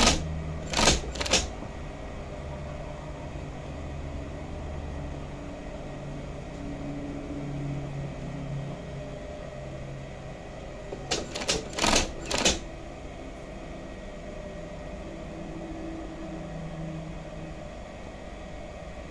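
Union Special 35800 feed-off-the-arm double-needle chainstitch machine sewing denim: a steady motor hum, broken twice by a cluster of three or four short, loud bursts as the machine stitches in quick spurts, once at the very start and again about eleven seconds in.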